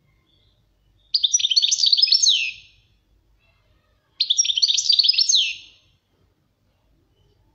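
European goldfinch singing: two bursts of rapid twittering song, each about a second and a half long and full of quick chirps and falling whistles, with a pause of about a second and a half between them.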